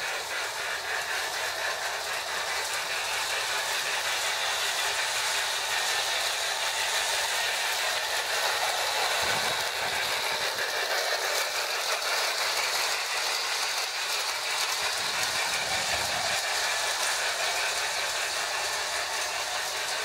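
Marx tinplate toy trains running on three-rail track: a steady mechanical rattle and hiss from wheels and motors, with the electronic chuff of a Sound-O-Power board fitted in the tender behind a Marx 333 steam locomotive.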